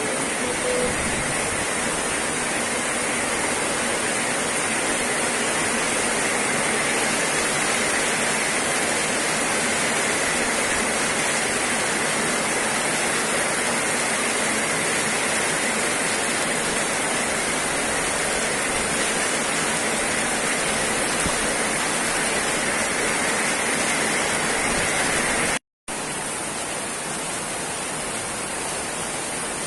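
Heavy rain pouring down steadily, a dense even hiss. The sound cuts out for an instant about 26 seconds in and comes back slightly quieter.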